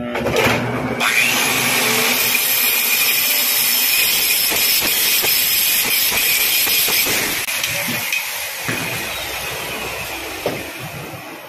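Electric angle grinder running, its disc grinding a metal workpiece held in a lathe chuck: a steady high whine over harsh grinding noise. It drops to a quieter, less even run about seven and a half seconds in.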